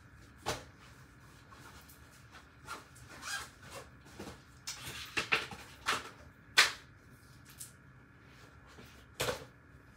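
Irregular rustles, clicks and knocks of someone rummaging through and handling things at close range, loudest about six and a half seconds in, with another sharp knock near the end.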